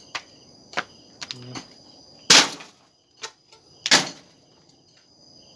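Hand hoes striking and scraping dry soil in several sharp, irregular knocks, the loudest about two and a half and four seconds in, over a steady high trill of crickets.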